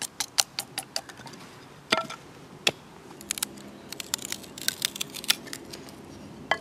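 A big knife splitting thin sticks of wood on a chopping stump: quick, sharp clicks and cracks as the blade is set and worked down the grain. They come in two flurries, with one louder crack about two seconds in.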